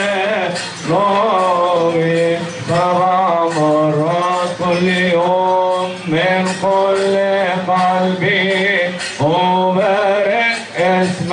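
Men chanting a Coptic hymn, long wavering sung phrases over a steady low held note.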